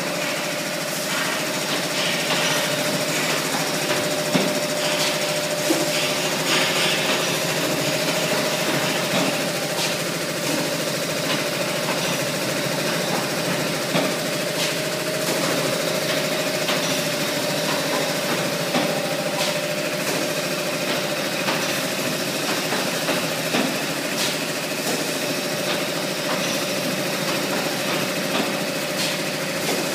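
A two-cavity fully automatic PET bottle blow-moulding machine running: a steady mechanical hum with a constant mid-pitched tone, broken by scattered clicks and knocks.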